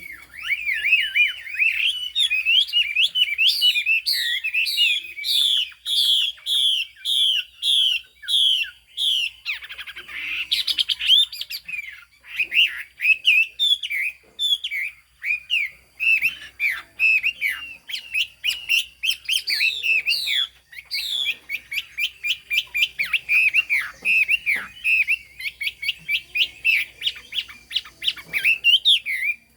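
Chinese hwamei (melodious laughingthrush) singing a loud, continuous, varied song of whistled notes: runs of the same phrase repeated several times over, with faster rapid-fire notes near the end.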